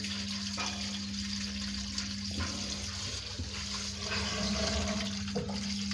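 Washing machine on its spin cycle, a steady hum with its waste water running through the PVC drain pipe.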